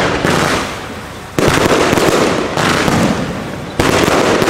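Aerial fireworks going off overhead: sudden bangs about a second and a half in and again near the end, each followed by dense crackling that fades over a second or two.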